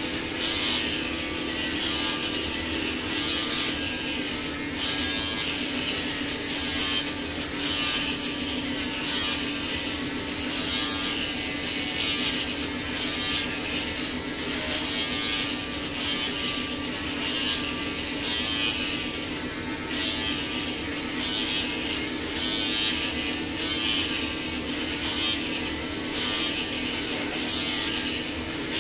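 Electric hair clippers running steadily while shaving a head of long hair, with a rasp at each stroke through the hair, a stroke every half second or so.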